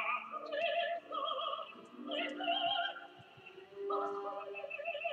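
Operatic singing: a voice holds a run of notes with a wide vibrato, dropping away briefly about three seconds in before the next phrase.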